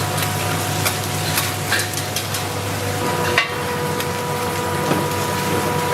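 Food frying with a steady sizzle, and scattered sharp clinks and taps of metal utensils against a pan, over a constant low hum.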